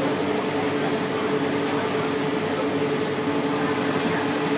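Extra cooling fans between and under commercial fridges running steadily: an even airy whoosh with a two-note hum.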